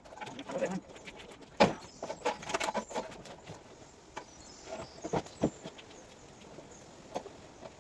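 Irregular knocks and clicks of parts being handled and pushed into place while fitting a fuel tank, the sharpest knock about a second and a half in, a quick run of clicks just after, and a few more scattered later.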